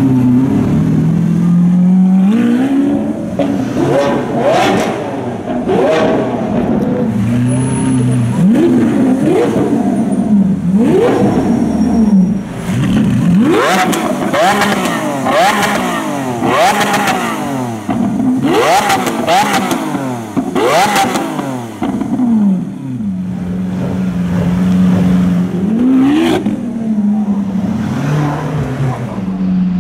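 Lamborghini Aventador Roadster's V12 through its sports exhaust, idling and then revved in a long series of quick throttle blips, each rev climbing sharply and dropping back. The blips come thickest in the middle, then it settles back to a steady idle with one more blip near the end.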